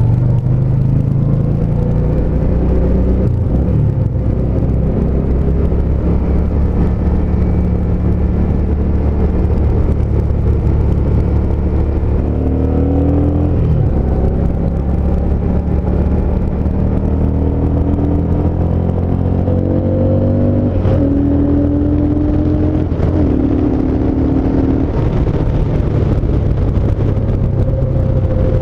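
Yamaha SCR950's air-cooled V-twin engine running steadily under way on the motorcycle, with short higher whining tones over it in the second half.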